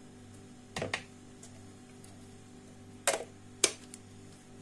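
A few short clicks and knocks of spice containers and utensils being handled and set down while mixing spices in a plastic bowl, the sharpest about three and a half seconds in, over a steady low hum.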